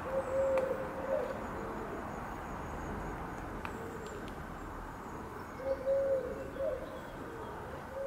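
Cooing of a dove in the background: a phrase of low, soft coos near the start and another about six seconds in, over a steady low background hiss.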